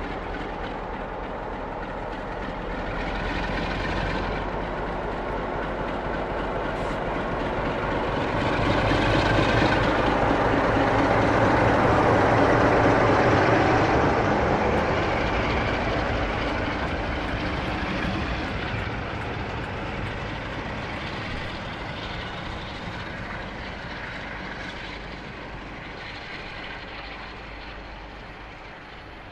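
Two Class 47 diesel locomotives coupled in tandem, their Sulzer twelve-cylinder engines working as they move off and pass. The sound builds to its loudest about ten to fourteen seconds in, then fades steadily.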